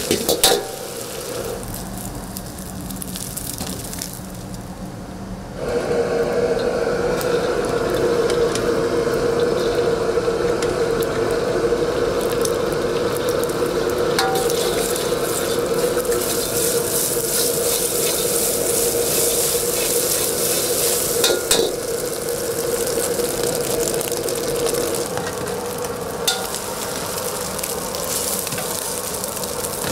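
Egg fried rice sizzling as it is stir-fried in a wok, with a few sharp metal clinks of the utensil against the pan. The frying gets louder and fuller about five seconds in and stays steady after that.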